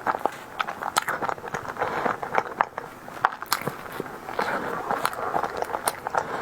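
Close-miked eating sounds of a tiger skin dessert: chewing with many irregular sharp, wet mouth clicks and smacks.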